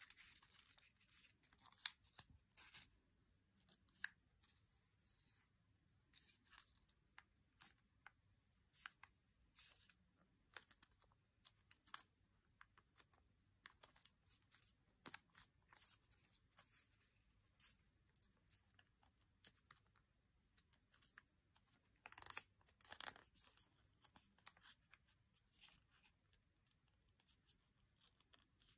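Faint rustling and crinkling of a 7.5 cm square of origami paper being folded and creased by hand, in many small ticks and short rustles, with a louder stretch of crinkling about three quarters of the way through.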